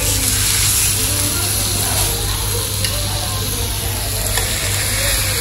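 Thin slices of beef frying in oil on a flat tabletop griddle, sizzling steadily, with a few light clicks of metal tongs as the meat is turned and lifted. A low steady hum runs underneath.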